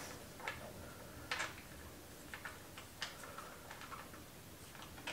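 A handful of faint, irregular metal clicks and ticks as a keysert installation tool is turned by hand into a freshly tapped exhaust manifold bolt hole in an aluminium cylinder head.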